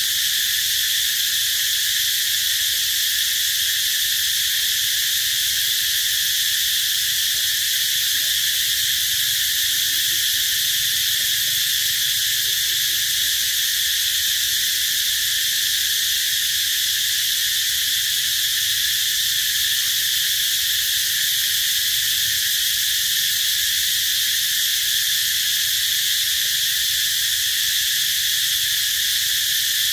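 A steady, high-pitched insect chorus: a constant shrill drone that never pauses or changes.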